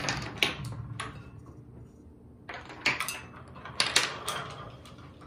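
Wooden blocks toppling one after another and clattering onto a wooden tabletop in a chain reaction: a run of separate hard clacks and knocks, busiest around three and four seconds in.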